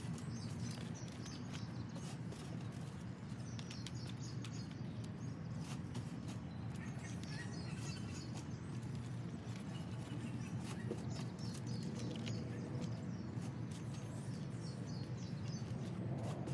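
Small birds chirping in short repeated phrases over a steady low rumble, with scattered faint clicks.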